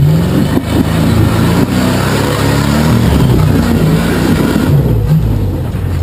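Rock-crawler buggy's engine revving hard under heavy load as it climbs a steep rock ledge, its pitch surging up and down repeatedly.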